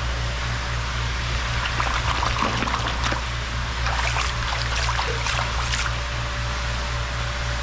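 Shallow creek water trickling, with a scatter of small splashes and gravelly clicks from about two to six seconds in as the creek bed is worked by hand. Under it runs a steady low hum that pulses about four times a second.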